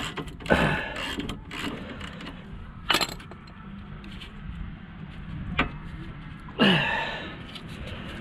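Metal tools and brake caliper parts being handled: a few separate clinks and scrapes, two of them with a short falling squeak, the loudest near the end.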